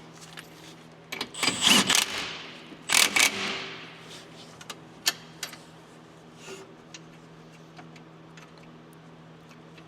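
Ratchet wrench clicking in two short bursts as the 19 mm nut on the shock's lower mounting bolt is run up semi-snug, followed by a few light clicks of tool handling.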